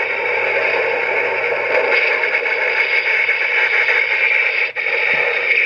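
Complete Selection Modification Den-O belt playing a steady, noisy electronic sound effect through its small built-in speaker, with a brief dropout about three-quarters of the way through.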